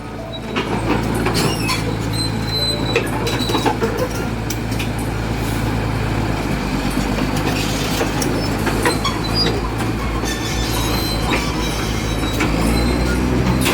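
Caterpillar bulldozer's diesel engine running steadily, with repeated metallic clanks and squeals from its steel crawler tracks as it moves. The engine grows louder near the end.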